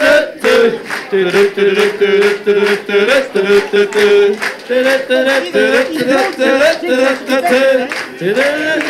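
Men singing a song in unison over a steady beat, with long held notes in the middle of the phrase.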